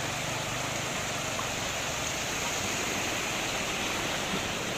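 Floodwater rushing steadily across a flooded road, with the wash of a pickup truck's wheels pushing through it.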